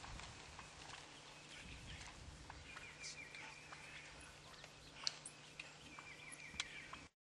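A bird calls twice, each time a short quick run of rapid repeated notes, over faint rustling and scattered light clicks.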